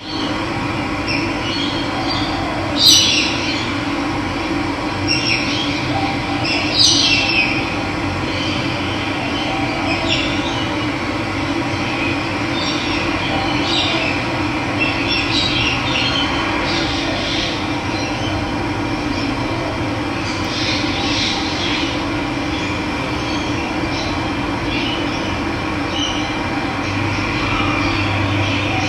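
Steady rush of running water with wild birds calling over it in short high chirps, the loudest about three seconds in and again around seven seconds.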